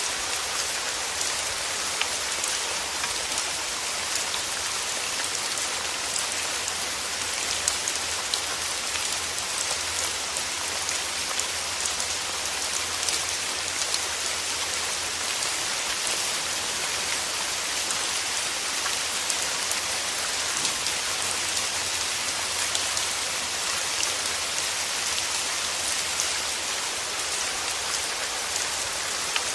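Steady rain falling, an even hiss with many small drop impacts scattered through it.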